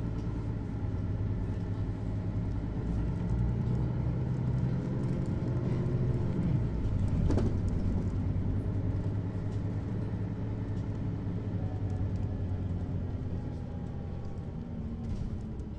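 Mercedes-Benz Citaro articulated bus driving, its diesel engine and drivetrain heard from inside the bus as a steady low hum. The engine note rises and falls as it pulls, with a short knock about seven seconds in.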